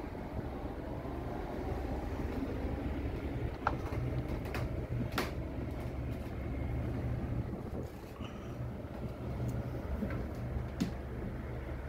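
Steady low machinery hum, with a few sharp knocks and clicks from boots and gloved hands on the ladder and hatch as someone climbs down inside an enclosed free-fall lifeboat.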